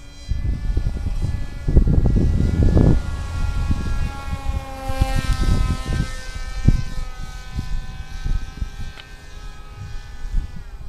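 Battery-electric radio-controlled plane's motor and propeller whining in flight, its pitch falling about halfway through and rising again near the end. Strong wind buffets the microphone throughout, heaviest about two to three seconds in.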